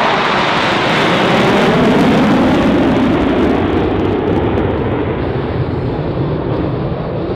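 Four F-16 fighter jets flying in diamond formation with afterburners lit: a loud, continuous jet roar whose pitch falls over the first three seconds as the formation passes, then eases off slightly toward the end.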